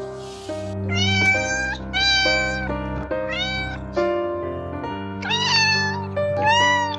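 A cat meowing about five times, each meow rising and then falling in pitch, over background music with sustained notes.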